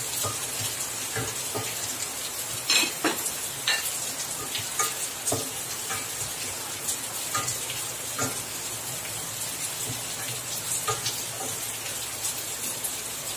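Chopped onions, tomatoes and green chillies sizzling as they sauté in coconut oil in a stainless steel pan. A wooden spatula stirs them, scraping and knocking against the pan every so often.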